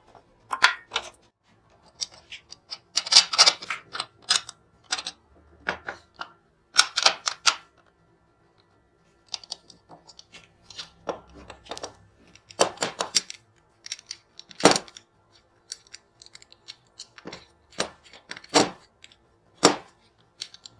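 Scattered sharp metallic clicks and clinks with short quiet gaps between them: a saber's metal hand guard, a C-clamp and a metal rod being handled and worked on a workbench.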